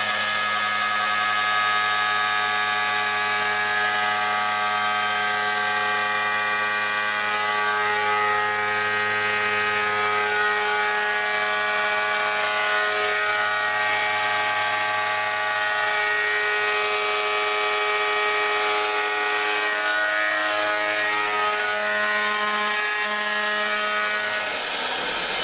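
DIY CNC router's 4.5 kW ER32 spindle running steadily while its end mill cuts an aluminium mould: a steady whine in several pitches over a hiss of cutting noise, with some of the tones shifting about twenty seconds in.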